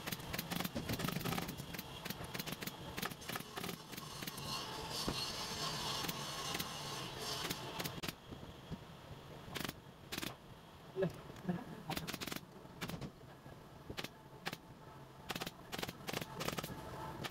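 Pneumatic upholstery staple gun firing staples one after another at irregular spacing into a wooden sofa-arm frame, each shot a sharp click. Over the first half the clicks sit in a dense, noisy workshop din; from about halfway they stand out alone.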